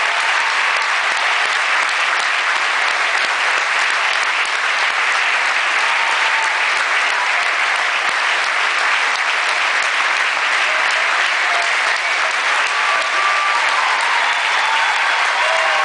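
Large theatre audience applauding steadily: a dense, unbroken wash of clapping that neither swells nor fades.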